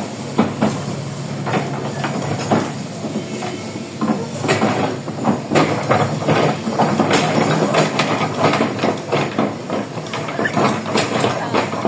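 Tracked excavator travelling: its diesel engine running steadily under frequent irregular clanks and clicks from the tracks.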